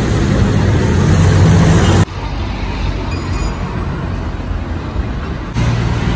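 Road traffic noise, with vehicle engines running nearby. It drops abruptly about two seconds in and jumps back up near the end.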